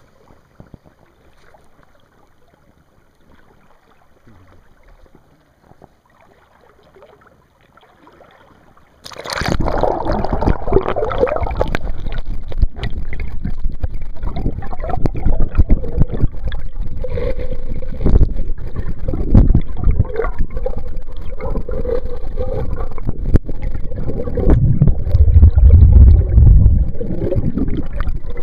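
Faint flowing creek water at first. About nine seconds in, the camera goes under water and the sound jumps to a loud, muffled rushing and buffeting of current against the submerged camera, with irregular low thumps that grow heavier near the end.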